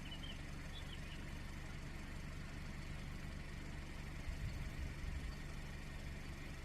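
Steady low machine hum, in the manner of an idling engine, with a few short bird chirps in about the first second.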